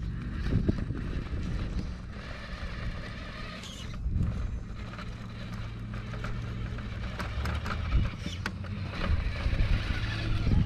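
Electric 550 Axe motor and gear drivetrain of a 1/10-scale Element Enduro Trailwalker RC rock crawler whirring, rising and falling with the throttle as the truck crawls over rocks, with a few sharp knocks of tyres and chassis against stone.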